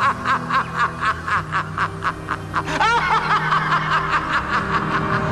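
A man's long, sinister laugh: rapid ha-ha-ha pulses, several a second, carrying on without a break, with steady low music notes underneath.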